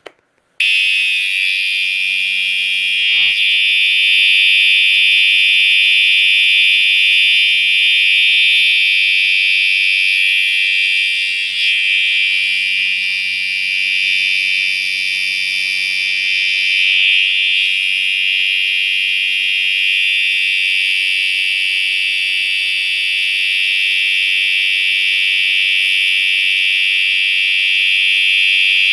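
Siemens UMMT multi-tone horn strobe sounding its continuous horn tone, a loud, steady, high-pitched electronic horn that switches on about half a second in and sounds without a break.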